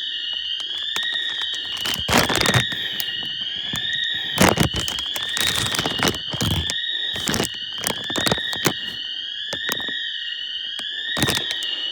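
Store intruder alarm sounder blaring, a high electronic tone that sweeps upward and resets about once a second, over and over. Sharp crackles and rustles come and go over it.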